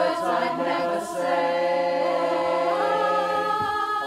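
A choir singing, holding long chords that change a couple of times.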